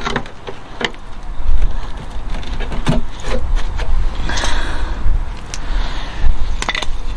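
Picking and scraping at the rusted steel sill of a Ford Transit MK7 with a small tool: scattered clicks and scrapes, with a longer scrape about four seconds in. A low rumble runs underneath.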